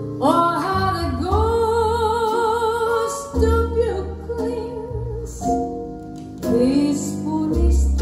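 A song playing back from a vinyl record on a Zorin TP-S0 turntable through bookshelf speakers: a singer holding long notes with a wide vibrato over bass and instrumental accompaniment.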